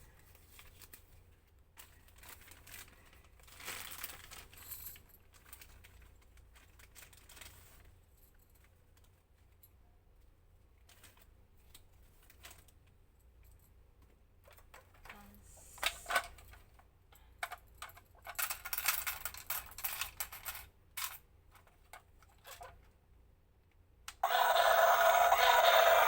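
Clicks and plastic rustling as a battery-operated toy and its packaging are handled, with a loud, dense sound lasting about two seconds near the end.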